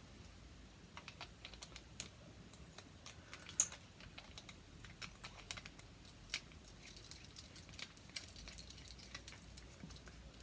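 Light, irregular clicks and taps of small hard parts being handled, with one sharper click that rings briefly about three and a half seconds in.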